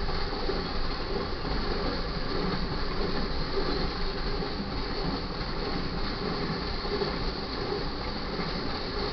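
Cars of a BNSF intermodal freight train rolling steadily past with continuous wheel-on-rail noise.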